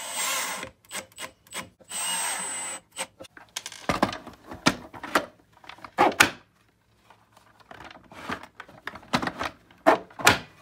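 Cordless drill driving a screw into a 3D-printed plastic part, in two short runs near the start. Then a string of sharp plastic clicks and knocks as a Milwaukee Packout organizer is set onto the box and pushed into place.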